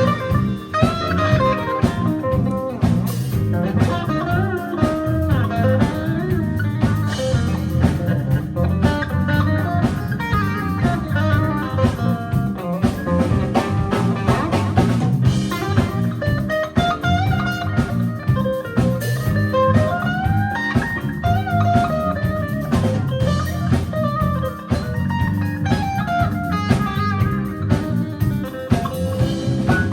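Live band playing an instrumental jazz-fusion tune, a melody line that bends in pitch over drum kit and a steady low bass.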